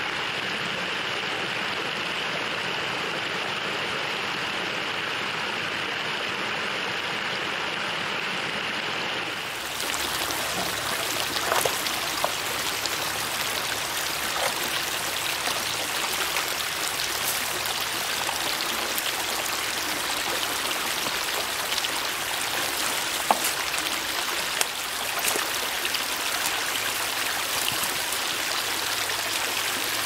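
Creek water pouring from a culvert outlet over a rock ledge into a pool, a steady rush. About ten seconds in it changes to a shallower, brighter flow of a stream running out of a partly blocked culvert, with a few light knocks and splashes as a pole pokes at the sticks and leaves in the culvert mouth.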